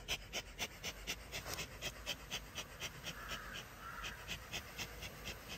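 Bee smoker's bellows being pumped fast, puffing smoke in short hissing bursts about four to five times a second, to smoke a clustered queenless colony off its stand.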